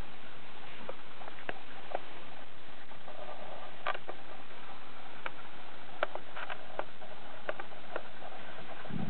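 Steady hiss of a handheld camera's microphone with scattered light clicks and taps from the camera being handled and moved, and a low thump near the end.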